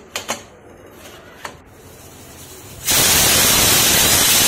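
A few light clicks near the start. Then, about three seconds in, the pressure cooker's whistle goes off: a sudden, loud, steady hiss of steam forced out past the weight valve, the sign that the cooker has come up to pressure.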